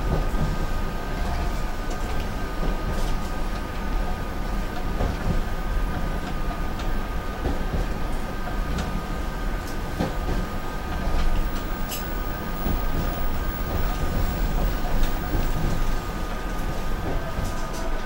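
SEPTA commuter train rolling along the track, heard from inside the car: a steady rumble of wheels on rail with a faint steady whine above it.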